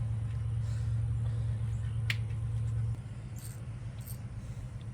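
A steady low mechanical hum that drops suddenly in level about three seconds in, with a single sharp click a little after two seconds in.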